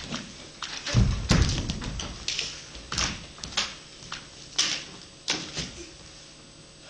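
Scattered knocks and taps of a performer moving about a wooden stage, with two heavy thuds about a second in; the knocks thin out near the end.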